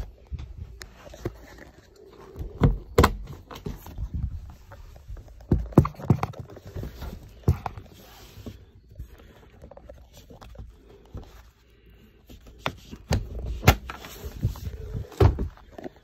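Irregular thumps, knocks and scrapes from the fold-down top bunk of a camper's bunk room being worked loose and lowered, with a quieter stretch in the middle.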